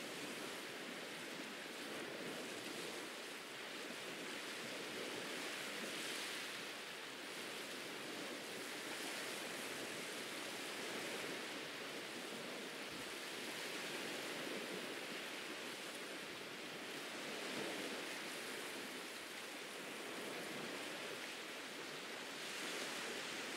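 Ocean surf washing onto a beach, a steady hiss of waves that swells and eases every few seconds.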